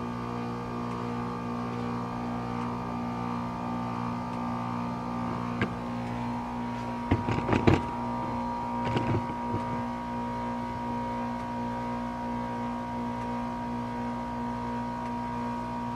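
2019 Goodman heat pump outdoor unit running in its defrost cycle, the compressor giving a steady hum. About halfway through, a short cluster of sharp clicks and knocks sounds over the hum.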